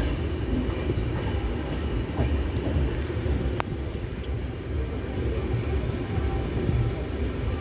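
Passenger express train running on the track, heard from a coach doorway: a steady low rumble of wheels and coaches, with one sharp click about three and a half seconds in.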